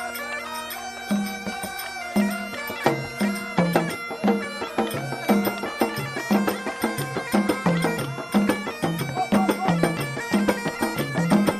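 Background music: a held drone with a melody over it, joined about a second in by a steady low beat of about two beats a second.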